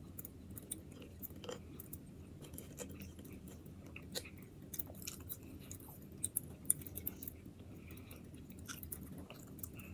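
A man chewing a mouthful of cheeseburger and French fries: faint, with scattered short soft clicks.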